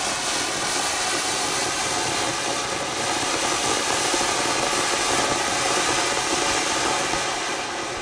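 A Legend's Fireworks flower pot (ground-fountain firework) burning, its spark jet giving a steady loud hiss that starts to die away near the end as the fountain burns out.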